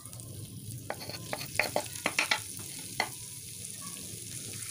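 Minced ginger frying in hot oil in a wok: a steady sizzle, with a cluster of sharp pops and crackles about one to two and a half seconds in as the ginger hits the oil.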